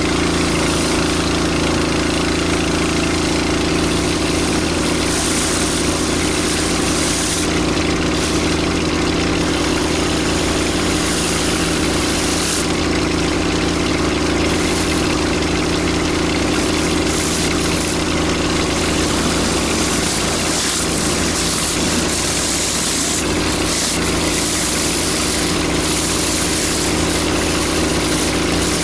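Pressure washer's engine running steadily under load, with the hiss of water jets from a surface cleaner being pushed across a concrete driveway.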